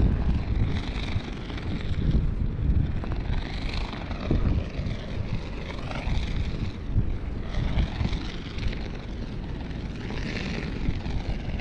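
Wind buffeting the microphone over surf on the beach, the hiss of the waves swelling every few seconds.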